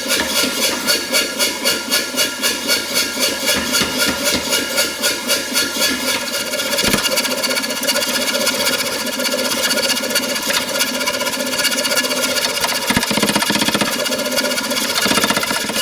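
A machine running with a regular beat of about three strokes a second, turning into a steadier, faster run about six seconds in.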